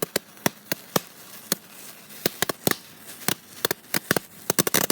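A roll of paper cap-gun caps burning, its caps going off one after another as sharp pops at an uneven pace, about twenty of them, coming faster near the end.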